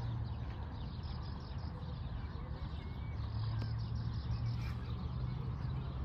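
Outdoor ambience: a steady low rumble with a few faint bird chirps.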